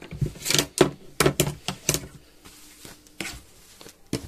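Cut pieces of trouser fabric being handled, folded and flapped on a cutting table: a run of short, sharp cloth rustles and flaps, thickest in the first two seconds, with a few more later on.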